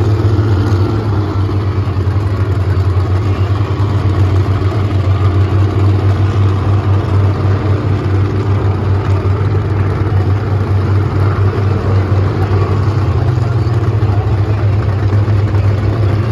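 Monster truck engine running steadily with a loud, even low drone and no big revs.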